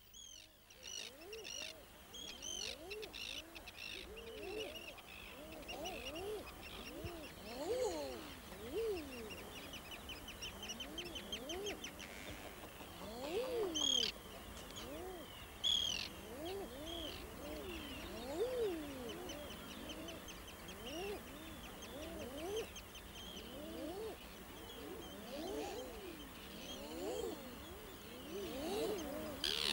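A chorus of birds calling. Many low, rising-then-falling cooing calls overlap, with high rapid chirps and trills above them.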